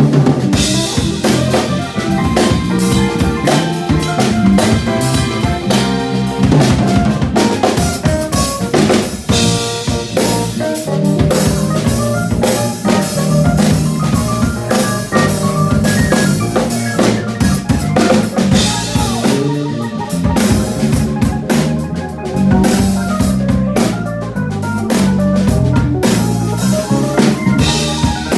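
Live band playing an instrumental tune: a drum kit keeps a busy groove with snare, rimshot and bass drum hits under electric keyboard chords and a low bass line.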